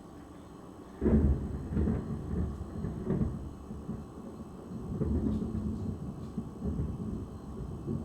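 Thunder: a sudden crack about a second in, followed by rolling rumbles that swell and fade, swelling again about five seconds in.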